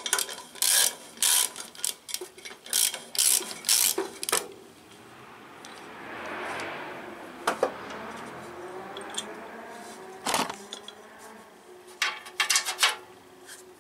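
Socket ratchet clicking in short bursts as the bolts holding the flywheel screen of a Briggs & Stratton 18 hp horizontal engine are backed out, with a longer, softer rasping stretch in the middle and more clicking near the end.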